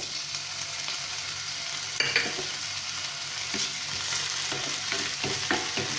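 Finely chopped tomatoes sizzling as they drop into hot oil in a nonstick frying pan, a steady hiss, with a spatula scraping and stirring them a few times from about two seconds in.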